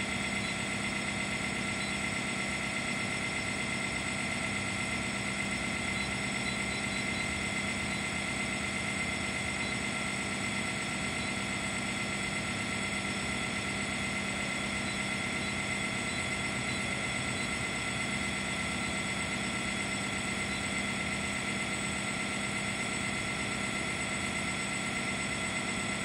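Machinery running at a steady idle: an even engine-like hum with several steady tones, unchanging throughout.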